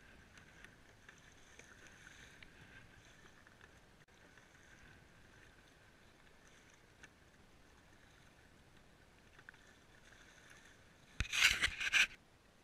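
Water swishing and lapping along a moving kayak's hull, then a loud splashing rush lasting about a second near the end from a paddle stroke.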